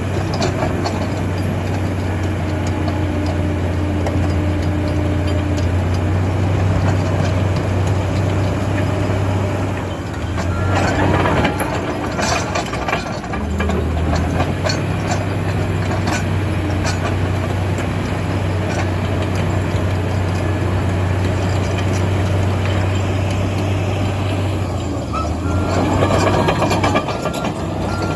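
Komatsu D85EX bulldozer's diesel engine running with a steady low drone. Twice, about ten seconds in and again near the end, the drone dips for a couple of seconds while a louder metallic clattering rises.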